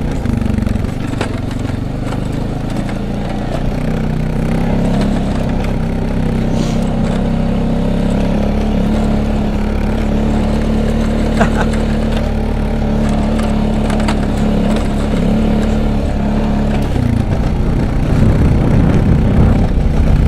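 Small off-road vehicle engine running at a fairly steady speed while towing a person through snow, its note wavering near the end.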